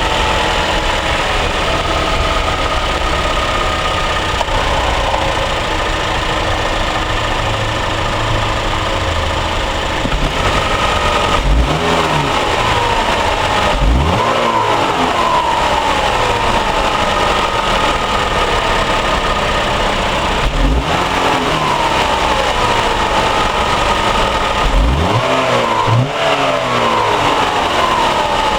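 2013 Chevrolet Malibu LT's engine heard through its stock exhaust, idling steadily and then blipped four times in the second half, each rev a quick rise in pitch that falls back to idle.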